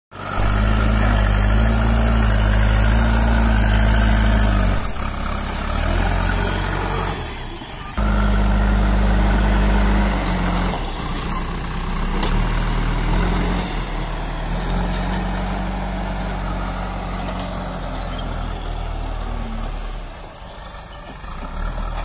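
Diesel engine of a JCB 3DX backhoe loader running steadily under load while it works its front bucket. Its level drops and comes back several times, with a sudden jump about eight seconds in.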